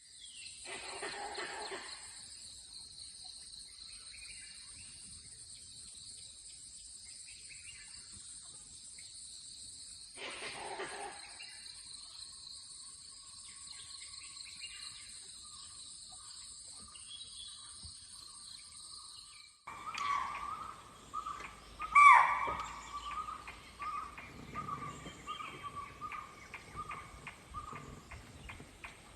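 Forest morning ambience: a steady high-pitched drone, typical of insects, with occasional bird calls. About two-thirds through the sound changes abruptly to louder bird calls, with one sharp loud call and then a rapid run of evenly spaced ticking calls.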